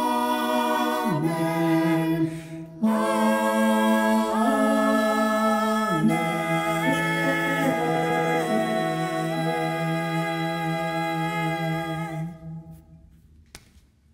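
A small group of voices singing a slow melody together without instruments, on long held notes that step from pitch to pitch. The singing fades out about twelve seconds in.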